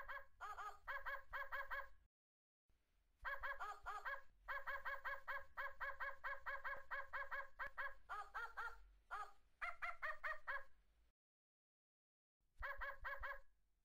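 A puppet character's high-pitched babbling voice: quick, even syllables, about five a second, in three stretches with short pauses between them.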